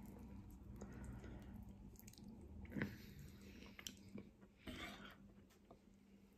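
Faint chewing and mouth sounds of someone eating a chicken shawarma wrap, with scattered small clicks and one sharp click about three seconds in.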